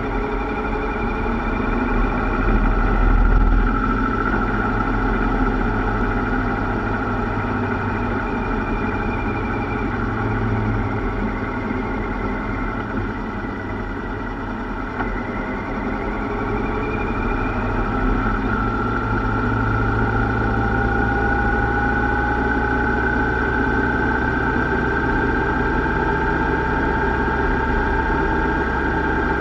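Yamaha Royal Star motorcycle's V4 engine running steadily at road speed under a rush of noise, picked up by a camera mounted on the bike behind the windshield. The engine note rises gently in the second half.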